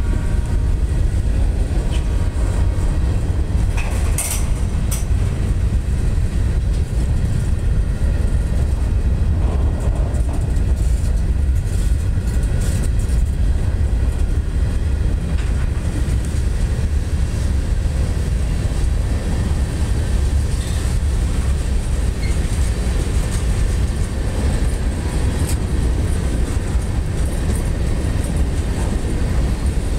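Freight cars of a Norfolk Southern train (covered hoppers, boxcars and open hoppers) rolling past close by: a steady low rumble of steel wheels on rail, with a couple of sharp metallic clicks about four to five seconds in.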